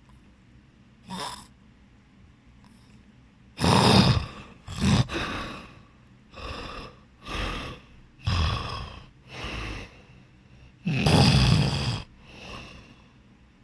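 A sleeping person snoring: a faint snore about a second in, then a run of about eight loud snores at uneven intervals, each under a second long. The longest and loudest comes near the end.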